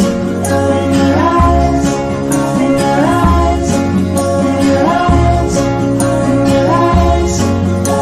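Music: an instrumental stretch of an indie rock song with guitar and a bass line. A short rising figure repeats about every two seconds.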